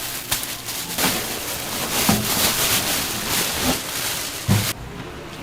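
Food sizzling on a hot flat griddle: a dense hiss that swells about a second in and cuts off suddenly near the end, with a few soft knocks.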